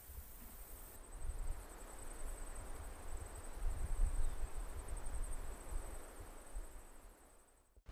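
Insects trilling in dry grassland: a high, fast-pulsing buzz that starts about a second in, over an uneven low rumble. It all fades out just before the end.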